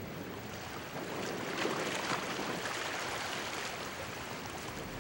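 Steady wash of shallow sea water, a soft even rush.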